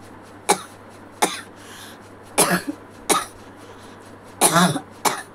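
A person coughing about six times in short, sharp coughs, spaced roughly a second apart.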